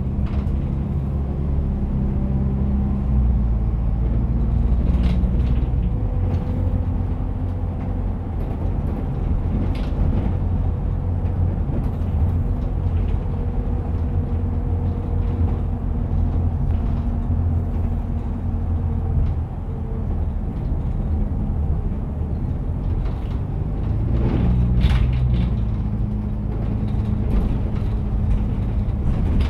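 A bus's engine running under way, heard from inside the passenger cabin: a low drone that changes pitch about six seconds in and again near the end, with a few short rattles from the bodywork.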